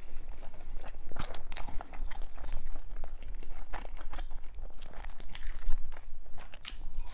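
A person biting and chewing food close to the microphone: irregular crunches and clicks.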